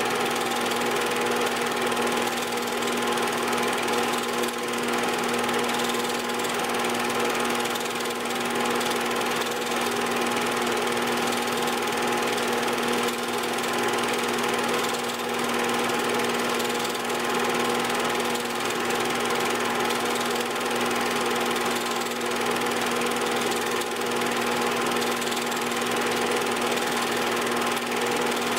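8mm film projector running, a steady mechanical whir with a constant hum that holds unchanged through the whole stretch.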